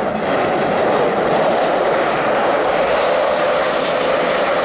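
Electric ice-racing car drifting through a snowy corner: a steady rush of motor and tyre noise as the tyres slide and scrabble on the packed snow.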